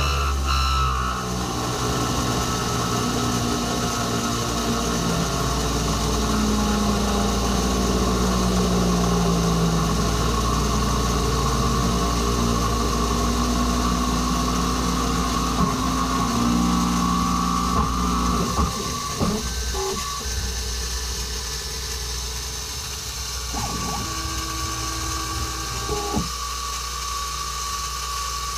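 CNC-converted mini mill milling quarter-inch steel plate with a quarter-inch carbide roughing end mill at 4,500 rpm under flood coolant, the axis stepper motors whining in rising and falling pitches as the table follows the contour. About 18 s in the cutting sound drops, with a few sharp clicks, and the machine runs on more quietly.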